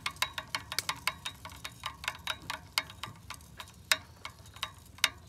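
Rear wheel of a bicycle with a Shimano coaster-brake hub spinning freely, the hub ticking as it coasts, the ticks coming several a second at first and slowing to a couple a second as the wheel winds down.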